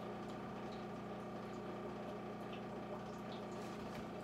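Steady electrical hum of a running kitchen appliance, with a few faint small clicks.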